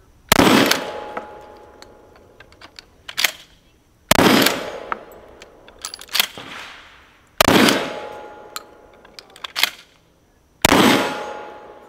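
Four shots from a Remington 870 12-gauge pump shotgun, about three and a half seconds apart, each fading over a couple of seconds. Short clicks of the pump action and of shells being loaded come between the shots.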